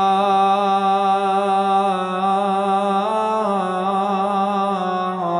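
A man's voice holding one long chanted note in Arabic elegiac recitation (rithaʾ), drawn out on the last syllable of a verse; the pitch shifts slightly about three seconds in and again near the end.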